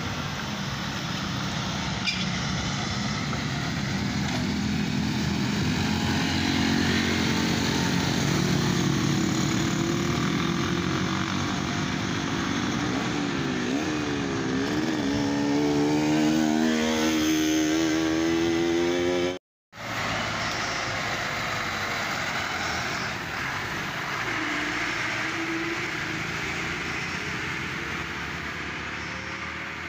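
Engines of vehicles taking a sharp bend: an Isuzu light truck and then a small pickup, their engine pitch climbing under load, with a dip and rise around the middle like a gear change. The sound cuts out for a moment just past halfway, then weaker engine noise fades away.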